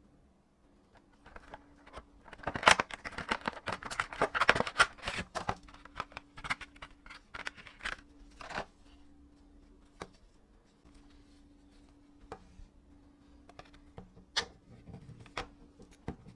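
Clear plastic packaging crinkling and rustling as a new phone back cover is pulled out of its bag, then several separate sharp clicks in the second half as the plastic back cover is handled and pressed onto the Nokia Lumia 620.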